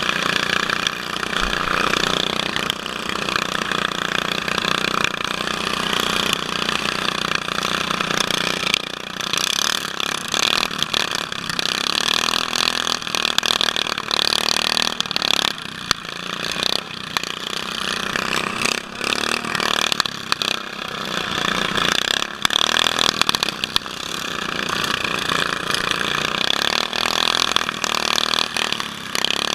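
Small riding-mower engine of a Case garden tractor running close up, rising and falling in speed, with other mower engines around it. Frequent sharp knocks and clatters from the machine running over rough dirt.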